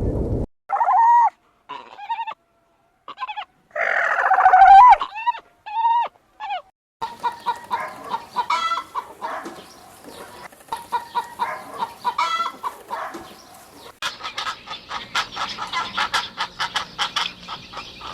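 Bird calls: short pitched calls with gaps between them, then a denser run of repeated calls over background noise. The sound changes abruptly about seven seconds in and again near fourteen seconds.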